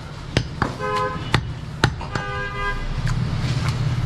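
Heavy cleaver chopping goat meat on a wooden chopping block: several sharp knocks. A vehicle horn sounds twice in the background, each about half a second long.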